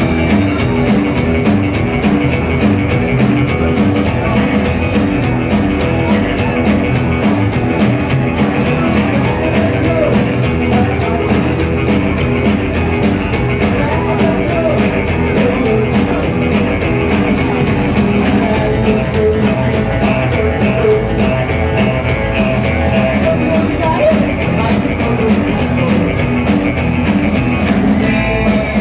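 Live rockabilly band playing a fast number: upright double bass, electric guitar and drum kit over a steady, driving beat.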